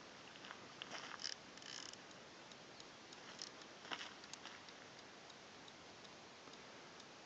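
Near silence: a faint hiss with a few scattered small clicks, clustered about a second in and again around four seconds in.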